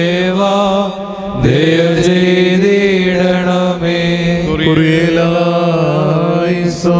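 Slow, drawn-out Syriac Orthodox liturgical chant sung over a steady held low drone.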